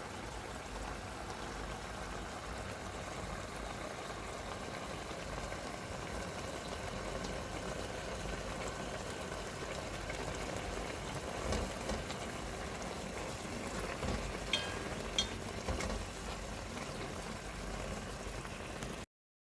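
Washed aged kimchi, onion and tomato sizzling and bubbling in olive oil in a pan, with a few light clicks partway through. The audio cuts off just before the end.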